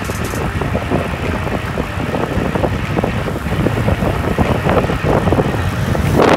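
Wind buffeting the microphone of a camera carried on a moving road bike, a steady rough rush with a louder swell near the end.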